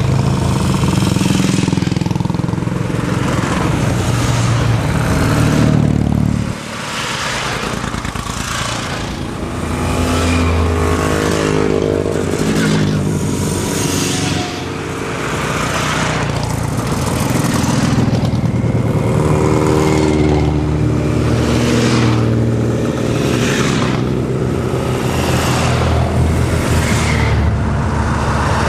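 A procession of vintage motorcycles, sidecar outfits among them, riding past one after another, each engine note swelling and fading as it goes by. A car passes near the end.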